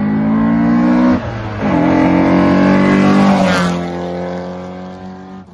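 Race car engine revving hard. It lifts off briefly about a second in, then climbs in pitch again before falling away and fading toward the end.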